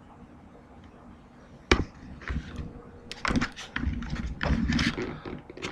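A sharp click a little under two seconds in, followed by a person's voice in short, indistinct bursts.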